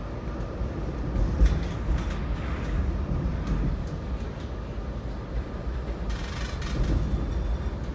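Metra commuter train running on the rails: a steady low rumble with scattered sharp clicks, and a brief hiss about six seconds in.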